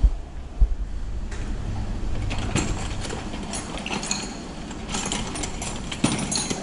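Metal hand tools clinking and rattling as hands rummage through a tool crate. An irregular run of sharp clicks and clanks starts about two and a half seconds in.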